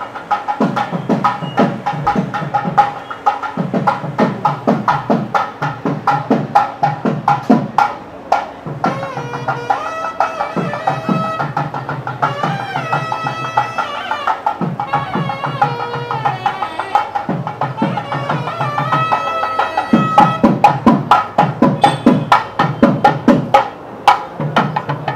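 Festive Indian music: fast, dense drumming with a reedy wind instrument playing a wavering, bending melody, in the style of a nadaswaram and thavil band. The melody stands out most through the middle, and the drumming grows louder near the end.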